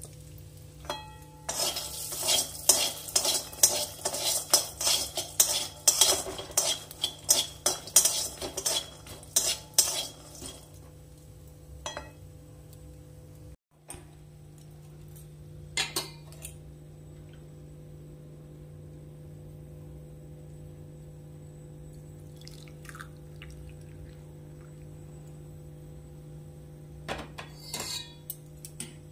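Peanuts being stirred and tossed with a metal spatula in a hot metal kadai: rapid scraping, rattling and clinking for about nine seconds. After a pause there is a steady low hum with a few metal clinks near the end.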